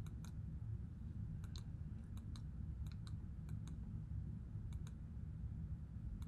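Computer mouse button clicks, about a dozen, often in quick pairs, advancing the presentation slides, over a steady low room rumble.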